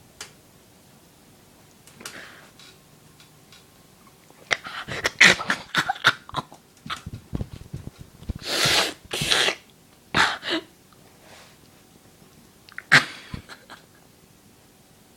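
Domestic cat hissing and spitting in a string of short, harsh bursts, with two longer hisses in the middle and a last spit near the end.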